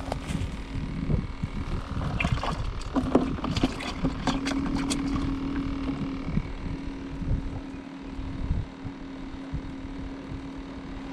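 Low rumble of wind on the microphone under a steady hum, with a run of clicks and rattles from handling fishing tackle and a live-bait bucket between about two and five seconds in.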